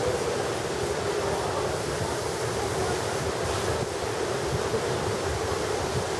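Steady rushing seaside ambience of wind and surf, with no distinct events and a faint steady hum underneath.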